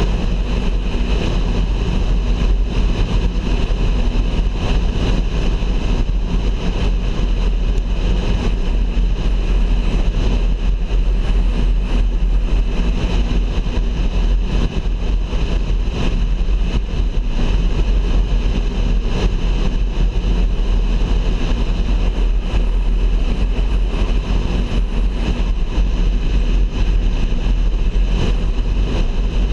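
Car driving along a highway: steady engine and road noise with a heavy low rumble.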